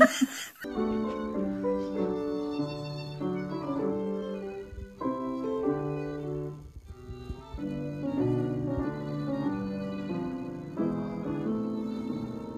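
Background music: a slow melody of long, held notes over a lower accompaniment.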